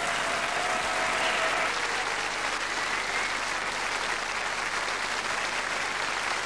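Large studio audience applauding steadily.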